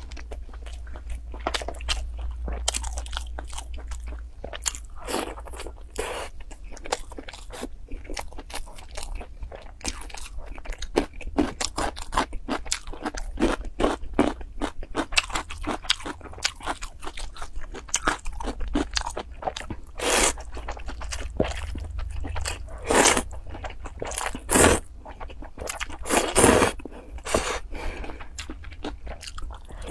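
Close-miked eating: crisp crunching bites and chewing of fried food, irregular throughout, with several louder crunches in the last third.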